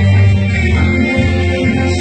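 A woman singing a Neapolitan-language pop song into a microphone over a backing track with a heavy, steady bass.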